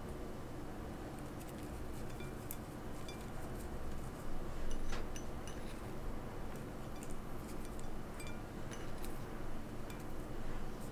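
Faint scattered ticks and light clinks of a ceramic plate and kitchen utensils over a steady low hum, with a slightly louder knock about four to five seconds in.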